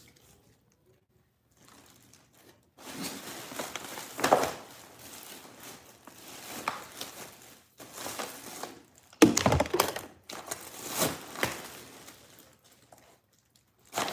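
Plastic bags rustling and crinkling as packages of meat are lifted out of a freezer basket and dropped into a bag, with sharp thuds of packages landing, the loudest about nine seconds in. It starts after about three seconds of quiet.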